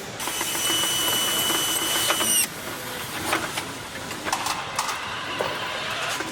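A power tool on a truck assembly line whines steadily for about two seconds, then drops in pitch and stops. Scattered clicks and metal knocks follow.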